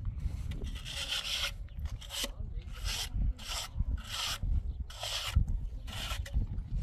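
A mason's trowel or float scraping back and forth over cement, in repeated strokes about one a second, with a low rumble beneath.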